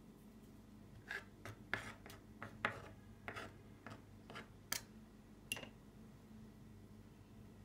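A knife scraping chopped ginger across a cutting board, about ten short strokes over four or five seconds, faint.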